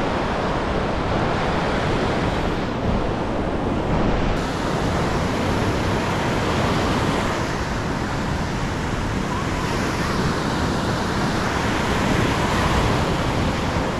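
Surf breaking on a sandy beach: a steady, rushing wash of waves, with wind on the microphone.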